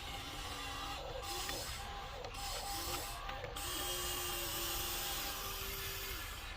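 Electric motors and gearboxes of a Huina 1594 RC excavator whirring, the sound changing a few times as different functions start and stop.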